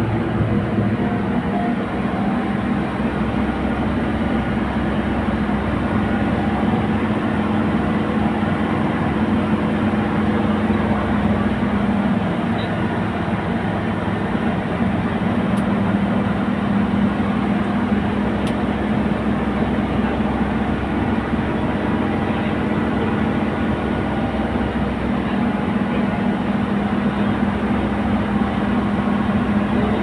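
Steady engine and road drone inside a moving coach bus's passenger cabin, with a strong low hum that holds level throughout.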